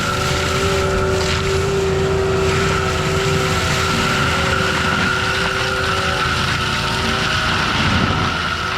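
Forestry mulcher on an ASV RT-120F compact track loader running steadily under load. Two steady whines, one mid-pitched and one higher, sit over a constant engine rumble.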